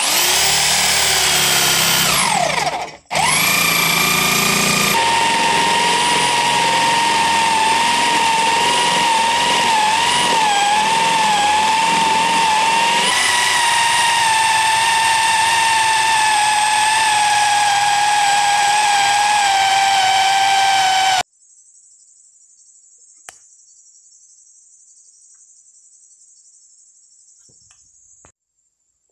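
Bosch electric drill motor whining at high speed as the bit bores into wood, its pitch wavering and slowly sagging under the load. The whine breaks off briefly near 3 seconds and stops about 21 seconds in, leaving only a faint hiss.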